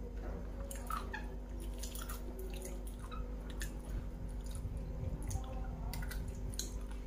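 Quiet chewing of crispy battered fried catfish, with scattered small crackles and clicks as the crispy coating and bones are pulled apart by hand.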